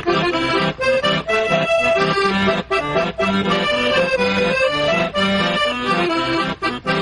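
Accordion playing a lively folk tune, with a regular bass note about twice a second under held chords and melody.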